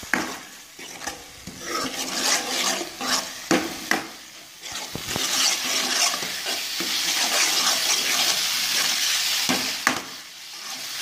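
Spatula scraping and stirring instant noodles in a hot pan while they sizzle in oil. There are a run of scraping strokes in the first half, then a steady sizzle that eases off near the end.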